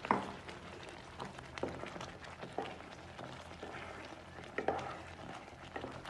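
A spatula stirring chopped pineapple through thick, simmering payasam in a nonstick pan. It gives scattered soft knocks and scrapes against the pan, the first the loudest, over a faint steady hum.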